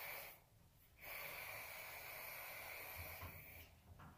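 Faint steady hiss of room tone with no igniter clicking, dropping out briefly twice.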